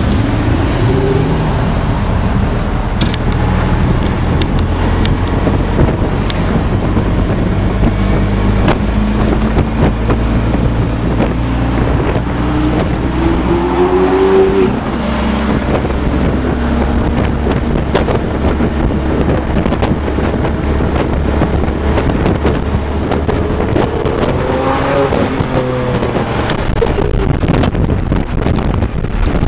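Cars driving together in traffic: a steady engine and road drone, with an engine revving up in pitch twice, about 13 seconds in and again about 25 seconds in.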